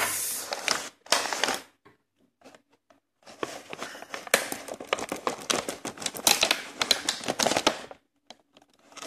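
Clear plastic blister packaging crinkling and crackling as it is handled and pulled apart to free a figure, with sharp clicks of the stiff plastic. Two short bursts come first, then a pause of about a second and a half, then a longer stretch of crackling.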